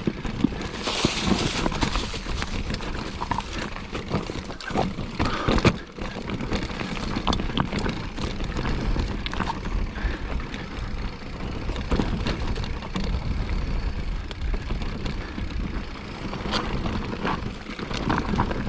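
Mountain bike rolling fast down a rough trail: a steady rumble of tyres over rock and dirt, broken by frequent knocks and rattles from the bike.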